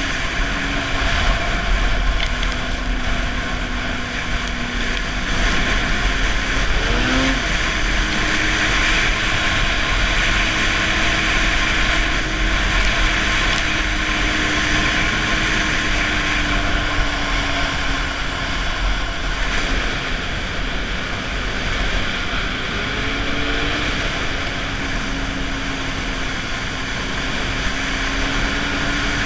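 Snowmobile engine and track running at a steady cruising speed, with wind buffeting the microphone. The engine pitch drifts slightly and shifts briefly about seven seconds in and again later as the throttle changes.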